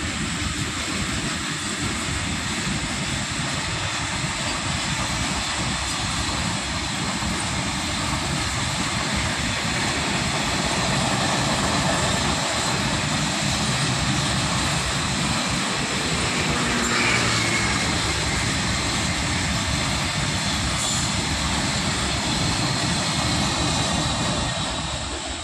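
Freight wagons of an Indian Railways goods train rolling past on the rails: a steady loud rumble and clatter of steel wheels. Near the end the brake van at the tail goes by and the noise starts to fall away.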